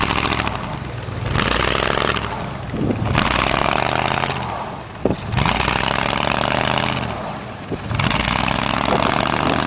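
Pickup truck engine revving in repeated surges about every two to three seconds, with its tyres spinning in deep snow as it tries to pull a stuck truck free. There are a couple of short knocks partway through.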